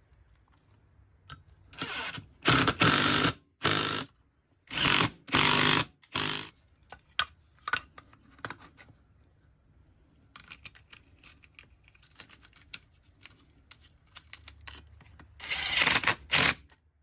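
Power drill driving screws into a wooden 2x4 in several short bursts, in the first six seconds and again near the end, with light clicks and taps of handling between.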